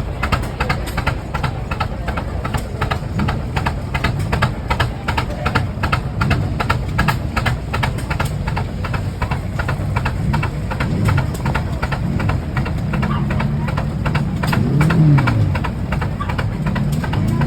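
Slow-running Rumely OilPull tractor engines, the big two-cylinder kerosene engines, beating out a steady, even exhaust at about three or four beats a second while belted to a sawmill. Near the end a pitched whine comes in, briefly falls in pitch, then holds steady.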